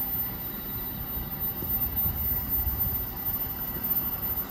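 E259-series Narita Express electric train running away through the station, a steady low rumble of wheels on the rails.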